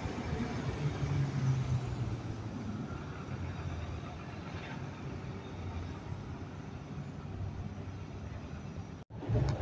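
Street traffic: a city bus driving off and cars and a motorbike passing, a steady low engine and tyre rumble that is strongest in the first two seconds. The sound cuts out for an instant near the end.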